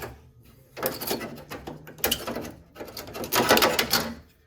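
Metal clicking and rattling of the old steel hood latch of a Mk1 VW Cabriolet being handled and worked free of its release cable, in three short bouts.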